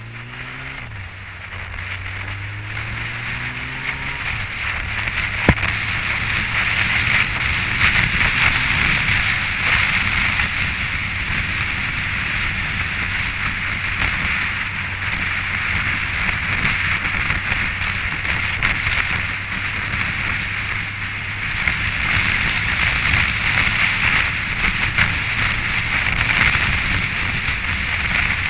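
Yamaha FJR1300's inline-four engine accelerating, with a gear change about a second in, then holding a steady cruise. A loud rush of wind on the microphone builds with the speed and covers the engine.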